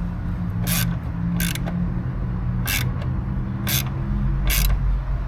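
Socket ratchet clicking in five short bursts about a second apart as a bolt is run in, over a steady low hum.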